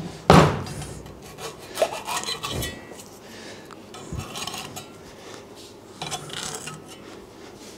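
A tool cutting and scraping at the rubber of a suspension bushing held in its metal carrier, in uneven rasping strokes, to free the bushing. A sharp knock sounds just after the start and is the loudest moment.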